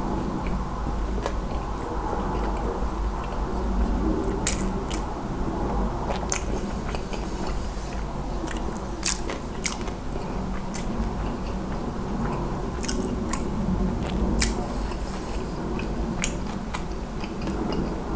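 A person chewing a mouthful of Mom's Touch Thigh Burger, a fried chicken thigh burger, with many short wet mouth clicks and smacks scattered throughout.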